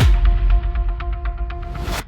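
Designed cinematic trailer sound effect: a deep low rumble dying away under a held drone tone, with a run of quick ticks at about seven a second, cutting off abruptly at the end.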